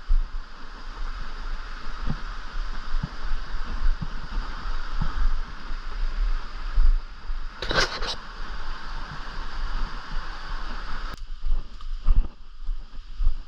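Rushing water, a steady hiss, with irregular low thumps from wind or handling on the microphone. A brief, sharp sound stands out about eight seconds in, and the water noise drops away abruptly about eleven seconds in.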